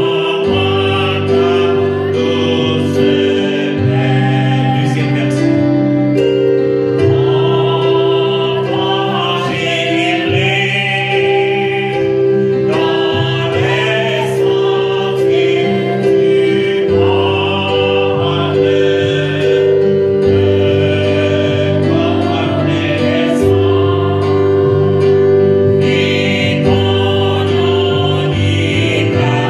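A French hymn sung by a man's amplified voice leading a congregation, over held accompaniment chords that change every few seconds.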